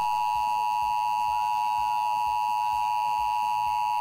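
Emergency Alert System attention signal: the two-tone alert, 853 Hz and 960 Hz sounded together, held at one steady pitch, announcing an EAS required monthly test.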